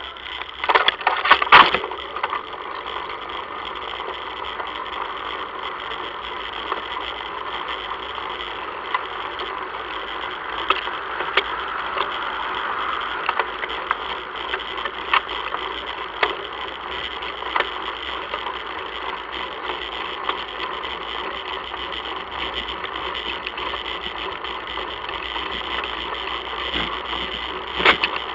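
Bicycle rolling along an asphalt road, picked up by a camera mounted on the bike: a steady rolling hiss with scattered clicks and rattles, a cluster of louder rattling in the first two seconds and again near the end.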